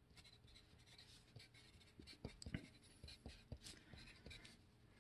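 Dixon No. 2 HB wooden pencil writing on paper: faint, irregular scratches and small taps of the pencil strokes.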